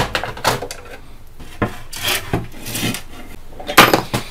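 Back cover being taken off a valve radio: a run of knocks, clatters and scrapes, with a sharp knock at the start and the loudest knock near the end.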